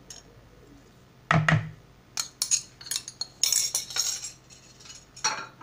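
A spoon clinking and knocking against a mixing bowl: one loud knock, then a run of quick clinks, while yeast and sugar are put into the liquids and stirred in.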